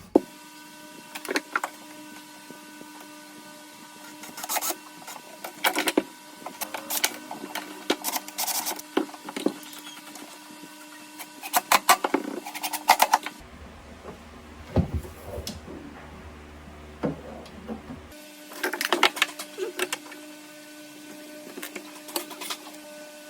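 Power drill running in several short bursts, drilling pilot holes and driving screws into plywood.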